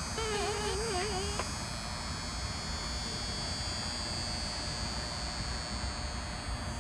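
Steady high-pitched buzz over a background hiss and low rumble, with a short wavering pitched sound in the first second and a half.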